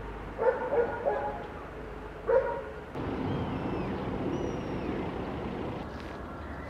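Mallard ducks quacking: a quick run of three calls, then one more a second or so later. The calls give way to a steady outdoor hiss with faint, thin, high bird chirps.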